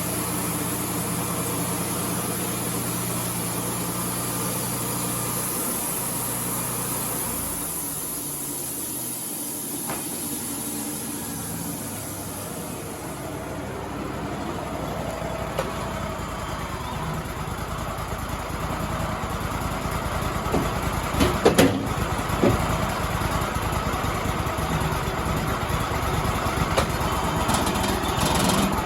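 Wood-Mizer LT35 band sawmill running, with a steady high hiss over the engine. The engine note drops about a quarter of the way in and the hiss fades soon after. The machine then picks up again, with a few loud clunks about two-thirds of the way through.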